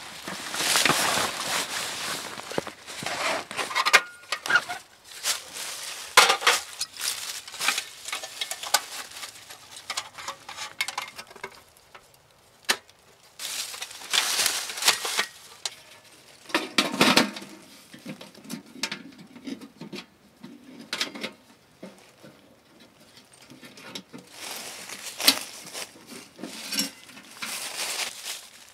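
Thin titanium panels of a Pomoly T-Brick folding wood stove clinking and rattling as it is unfolded and assembled by hand, with dry leaves rustling underneath. The sound comes in irregular bursts, with a few sharp metal clicks.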